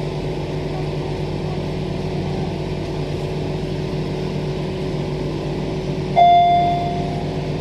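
Steady hum of a Transperth A-series electric train heard inside the carriage. About six seconds in, a single loud, steady beep lasting about a second sounds: the train's door warning tone.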